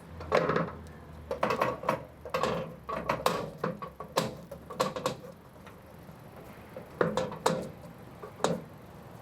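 Irregular wooden knocks, clunks and short scrapes as a heavy antique wooden desk is handled and moved by movers, over a steady low hum. About a dozen knocks come in the first five seconds, then a pause, then a few more near the end.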